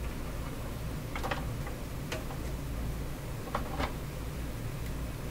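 A few light, sharp clicks of an Allen key and small metal parts being worked on a reel-to-reel tape recorder, over a faint steady low hum.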